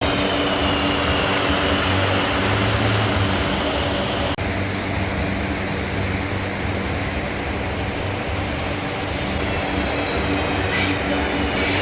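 Steady workshop machinery noise: a constant low hum under a dense, even din, with a brief cut-out about four seconds in.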